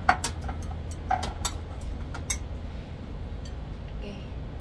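A metal spoon clinking against ceramic dishes: a handful of sharp taps in the first two and a half seconds, then a few fainter ones.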